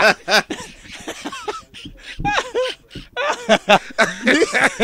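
A man laughing hard into a studio microphone, in a run of short bursts with brief pauses.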